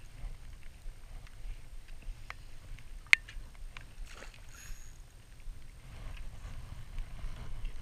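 Steady low rumble of water and wind around a small boat, with small handling clicks from a spinning rod and reel being wound in while a fish is played, and one sharp, loud click about three seconds in.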